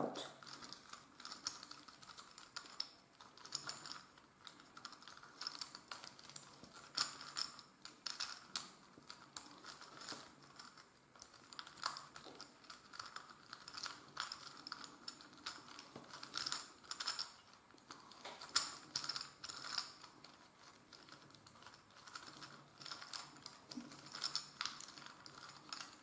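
Plastic gear cube being twisted by hand: its layers and meshing plastic gears click and rattle in quick, irregular runs of small clicks.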